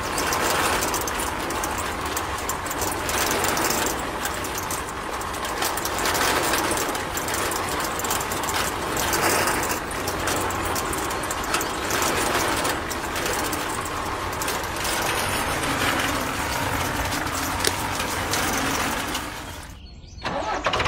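Small motor and gearbox of a miniature model tractor running steadily, a whirring, grinding mechanical noise that drops away briefly near the end.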